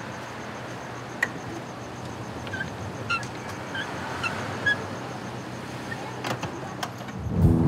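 Minivan idling at the curb with a steady low hum of engine and street noise, while passengers climb in through the open sliding side door: a few knocks and clicks and some short high chirps. Music comes in just before the end.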